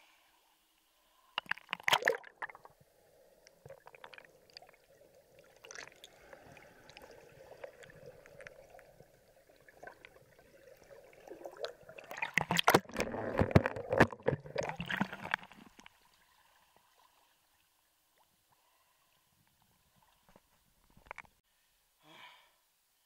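Seawater splashing and sloshing around a camera held at the surface by a swimmer. A short loud splash comes near the start, then soft lapping, then a longer loud stretch of splashing and gurgling as the camera dips underwater about midway. It falls quiet after that.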